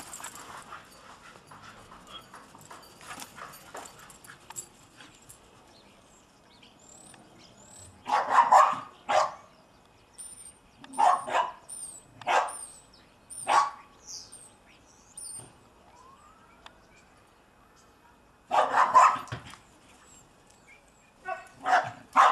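Dog barking in play: quiet for the first several seconds, then short bursts of barks with pauses between them, and a quick run of barks near the end.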